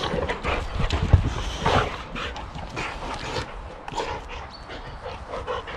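Two boxer dogs, an adult and a puppy, rough-playing: dog vocal sounds over scuffling and knocks of paws and bodies, loudest in the first two seconds.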